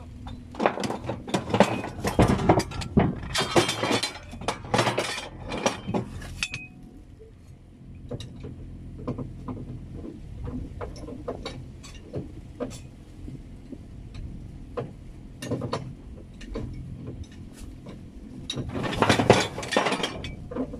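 Steel formwork hardware (threaded tie rods, clamps and wing-nut fittings) clattering and clinking against the metal trailer bed as it is handled. A dense run of clatter fills the first six seconds, single clinks come now and then after that, and another burst of clatter comes near the end.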